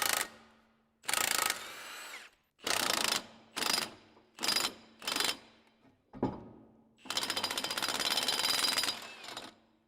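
Impact wrench with a 19mm socket hammering off the cutter-wheel bolts in a string of short bursts, a sharp knock a little past the middle, then one longer burst of about two seconds near the end.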